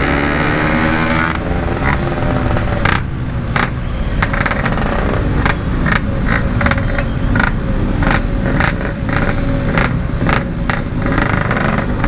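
Yamaha RX-King's two-stroke single-cylinder engine running through an aftermarket Packing Power exhaust, its pitch rising and falling with the throttle in slow stop-and-go traffic, with many short sharp crackles.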